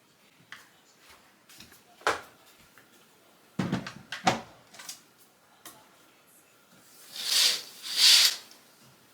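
Several sharp knocks and clacks of objects being handled, followed near the end by two louder hissing swishes in quick succession.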